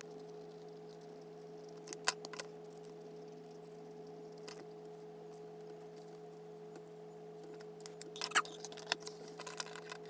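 Pens being handled and set down on a wooden desk: a few sharp clicks about two seconds in and a quick run of clicks near the end, over a steady low hum.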